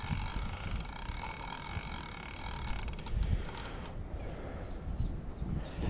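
Fishing reel mechanism clicking in a quick, even rhythm while a hooked catfish is played, with a low handling rumble beneath; the clicking fades out about three seconds in.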